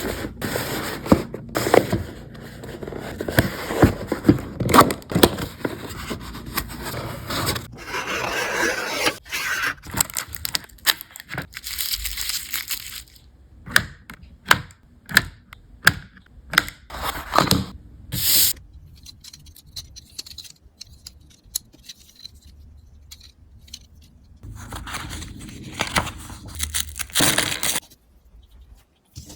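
Toy packaging being opened: cardboard and plastic rustling, crinkling and tearing for the first dozen seconds or so, then a run of sharp separate clicks and snaps. After a quieter stretch there is another burst of rustling near the end.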